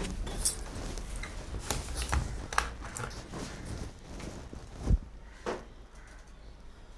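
A person getting up and moving about: scattered footsteps, rustles and knocks over a low room rumble, with one heavier thump about five seconds in.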